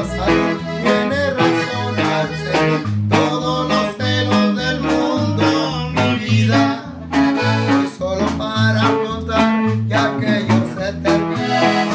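Norteño conjunto playing live: a button accordion carries the melody over strummed bajo sexto, with a bass line alternating on the beat and a snare drum.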